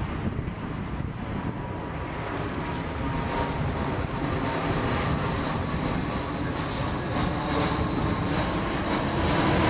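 Engine noise from an Airbus A319-132 on final approach as it passes low overhead: its IAE V2500 turbofans run steadily at approach power with a thin high whine over the noise, growing louder through the pass.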